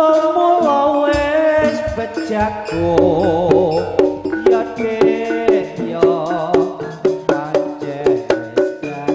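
Live East Javanese jaranan music: gamelan-style metallophones and drums playing a busy rhythmic pattern, with a wavering melody line over it.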